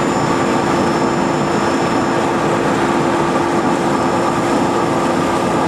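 Green tea processing machinery running: a loud, steady whir with a constant low hum and a few fainter high tones held throughout, as the conveyor carries freshly steamed tea leaves up from the steamer.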